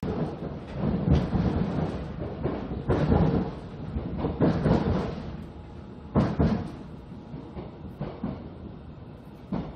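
Rumble and clatter of a Seoul Metro Line 7 electric train's wheels running on the track, heard from inside the car, with irregular heavy knocks. Loudest through the first half, easing off after about five seconds, with one more sharp knock a little after six seconds.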